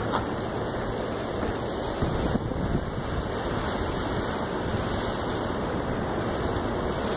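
Wind blowing across the camera microphone: a steady rushing noise with a slightly stronger gust about two seconds in.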